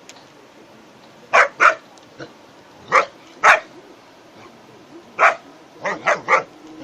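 German Shepherd dog barking in short, sharp barks, about eight in all, coming in quick pairs and then a run of three near the end.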